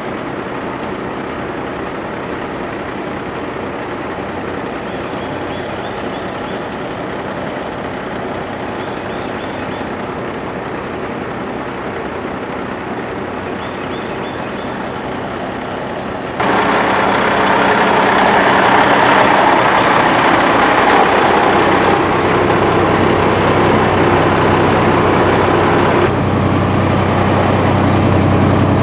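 Diesel tractor-trailer with double trailers running as it rolls by, a steady engine drone. About halfway through the sound cuts abruptly to louder engine and road noise heard from inside the truck's cab.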